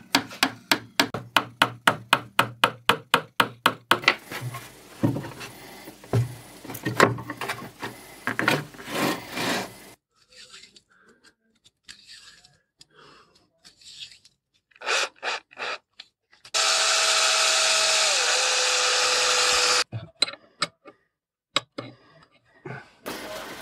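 Rubber mallet tapping polished steel rods into holes in a plywood frame, about four blows a second for the first four seconds, then the rods scraping and knocking in the wood. Later a small power tool runs steadily for about three seconds, its pitch dropping partway, followed by a few clicks of metal parts.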